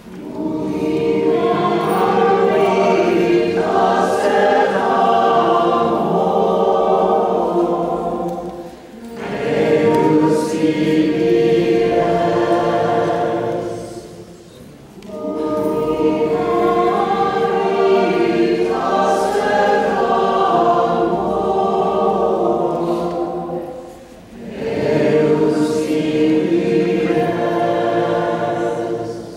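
A choir singing in four long phrases, with brief pauses between them about nine, fourteen and twenty-four seconds in.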